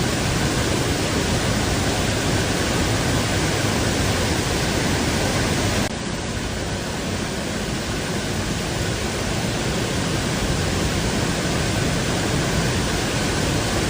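Waterfall, water crashing down in a steady, loud rush, dipping slightly about six seconds in.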